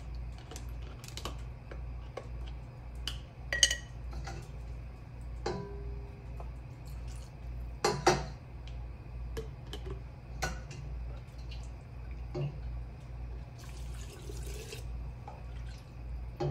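Hot broth ladled from a steel stockpot through a plastic canning funnel into glass canning jars, with a splash of pouring liquid near the end. Scattered sharp clinks and taps of the ladle and debubbling tool against the pot, funnel and jars, two of them louder, over a steady low hum.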